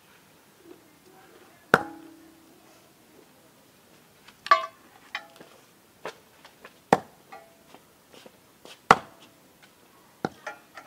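Cleaver chopping raw pork on a wooden chopping block: single sharp chops spaced irregularly a second or two apart, about six in all, one near the middle with a brief ringing.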